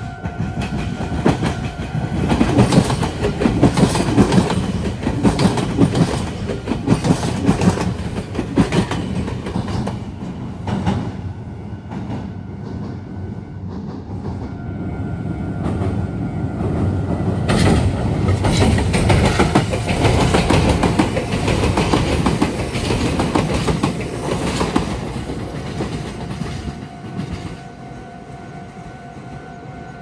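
Meitetsu electric trains passing over the junction's points, the wheels clattering over the rail joints. The clatter swells twice, easing off in between. A level crossing warning bell rings at the start and again near the end as the trains clear.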